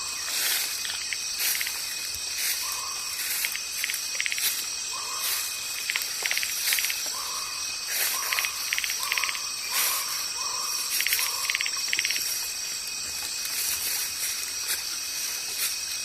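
Insects shrilling steadily, with short pulsed chirps repeating over the drone. A lower short call repeats about once a second for several seconds, then stops about twelve seconds in.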